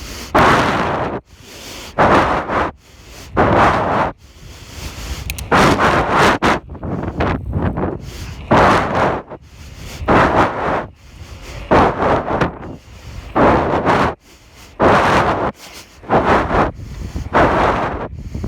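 Heavy, rhythmic breathing straight onto the microphone of a phone held in the mouth, a loud gust of breath about every second and a half with wind noise between.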